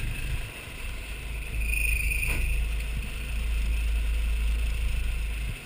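Old tractor's engine running as it drives across the beach sand, a low rumble that grows louder about a second and a half in and drops off suddenly just before the end.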